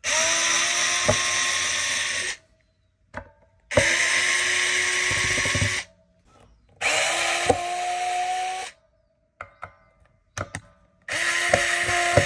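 Power drill running in four short runs of about two seconds each, with a whine that spins up at the start of each run. Small clicks fall in the pauses between runs.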